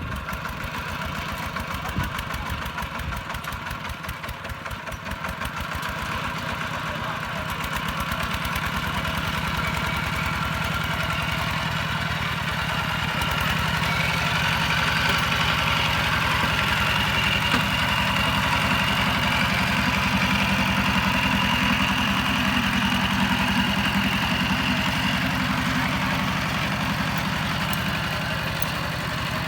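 Kubota ZT-150 single-cylinder diesel engine on a two-wheel tractor, running with a rapid steady beat. It grows louder from about six seconds in and holds at the higher level from about fourteen seconds.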